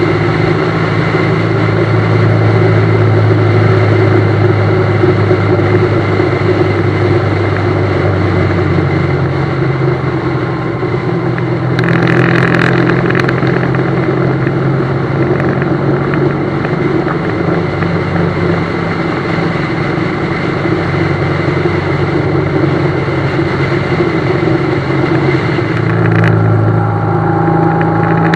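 BMW GS motorcycle running at road speed, heard from on board. The engine note drops about nine seconds in and comes back up near the end, with a short hiss about twelve seconds in.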